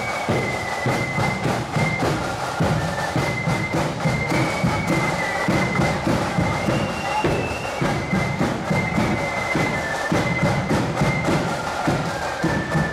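Marching band playing a tune as it marches: a high wind melody over a steadily beaten bass drum and side drums.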